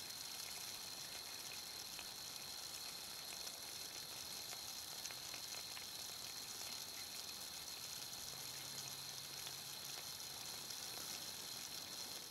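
Steady fizzing hiss of fine bubbles streaming in water around a submerged copper pipe ring, with faint scattered ticks.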